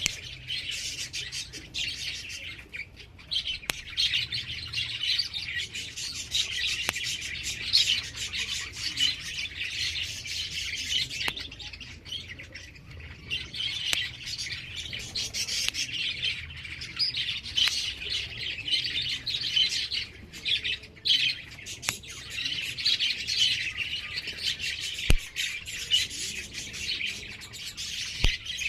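Many birds chirping and chattering without pause, a dense, overlapping chorus of quick high calls.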